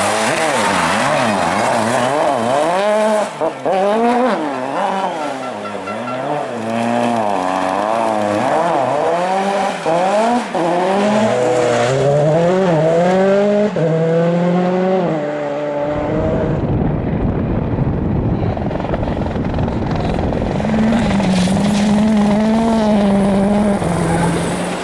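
Rally car engine revving hard, its pitch climbing and dropping again and again as it accelerates, shifts and lifts off between corners. After about 16 seconds the engine note gives way to a rough low rumble, with a steadier drone near the end.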